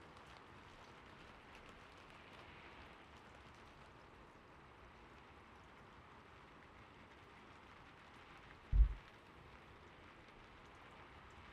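Gentle steady rain sound in the background, with a single dull low thump a little under nine seconds in.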